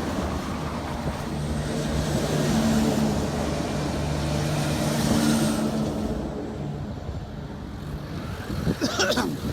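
Military trucks driving by on a road, their engines humming steadily over tyre and road noise, louder as vehicles pass about two to three and five seconds in.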